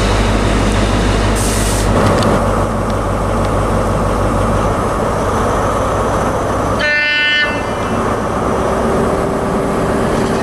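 Train running at the platform with a heavy low rumble that eases off about halfway through, and a short blast of a train horn about seven seconds in.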